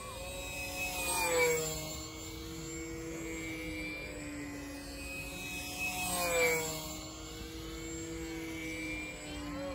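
Control-line stunt model airplane flying laps around its pilot. Its motor gives a steady tone that swells and drops in pitch each time the plane sweeps past, about a second and a half in and again about six and a half seconds in.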